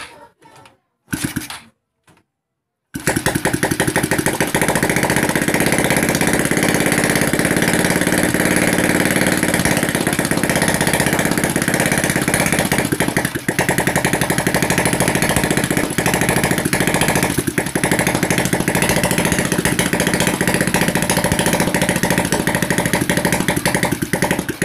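Freshly overhauled Honda RS125 single-cylinder engine starting about three seconds in after a few short attempts. It runs steadily for about twenty seconds, then cuts off near the end.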